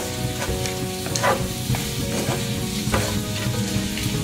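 Shrimp sautéing in a frying pan with garlic, onion and red bell pepper, sizzling steadily, while a utensil stirs and tosses them, clicking and scraping against the pan several times.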